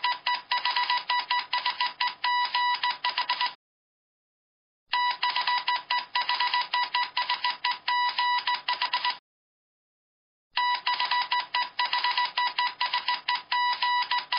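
Typewriter sound effect: rapid key clacks in three runs of about four seconds each, with pauses between them.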